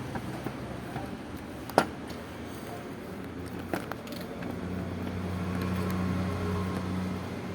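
A motor running with a steady low hum that grows louder about halfway through, with two sharp metallic clicks.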